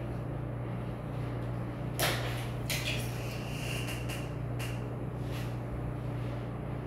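A brief scrape about two seconds in and a short knock just after it, over a steady low hum.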